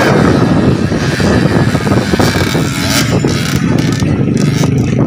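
Motocross dirt bike engines running, a loud continuous vehicle noise.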